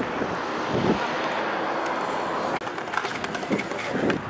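Steady outdoor traffic noise from a nearby street. About two and a half seconds in it drops abruptly to a slightly quieter hiss with scattered light clicks.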